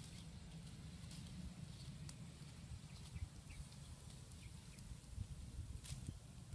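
Faint outdoor ambience: a steady low rumble with scattered faint short chirps and clicks, and one sharper click near the end.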